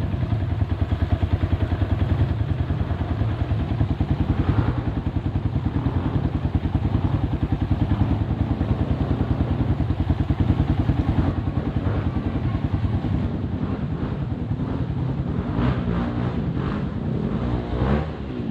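Motorcycle engine running steadily with fast, even firing pulses, with a few clattering knocks and a change in engine pitch near the end.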